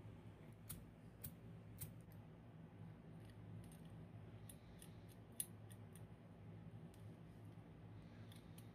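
Faint, scattered metallic clicks and ticks as small metal parts of a carbide miner's lamp are handled and fitted by hand, the sharpest click about five and a half seconds in, over a low steady hum.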